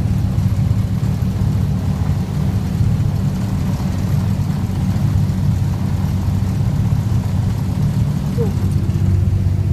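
Boat engine running steadily under way: a loud, even low drone with a rush of noise above it.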